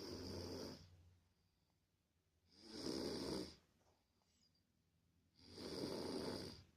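Slow, regular snoring: three snores, about one every three seconds, each lasting just under a second, with quiet between.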